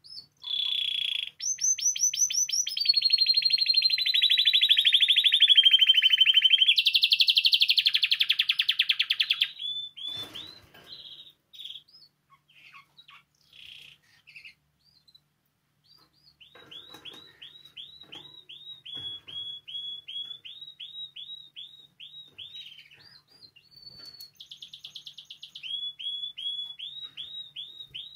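Spanish timbrado canary singing. First comes a loud, continuous rolling trill of very fast repeated notes lasting about nine seconds, then a few scattered short notes, then long runs of quick repeated swooping notes.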